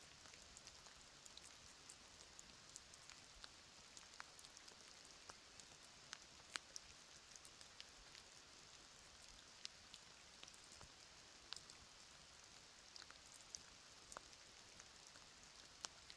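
Light rain: scattered raindrops ticking at irregular intervals over a faint steady hiss.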